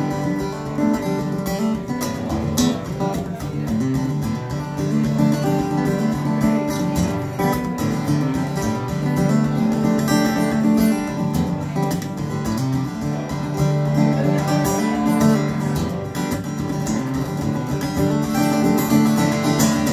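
Two acoustic guitars played live, strumming chords with picked melody lines, in an instrumental break of the song with no singing.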